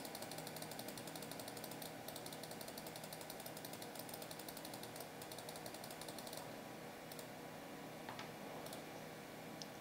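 Rapid, evenly spaced clicking of computer keyboard keys pressed over and over to step through BIOS setup menus. It breaks off about six seconds in, and a few single clicks follow.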